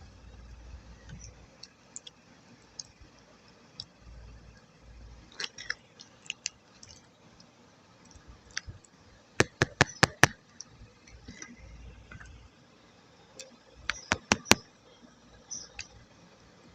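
Close-up sounds of wet multani mitti clay paste being handled: scattered sharp clicks and small wet squishes, with two quick runs of about five loud clicks, one about ten seconds in and one about fourteen seconds in.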